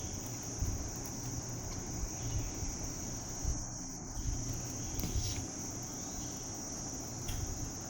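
Steady background noise: a constant high-pitched whine or hiss with a low rumble beneath it, and only a few faint clicks.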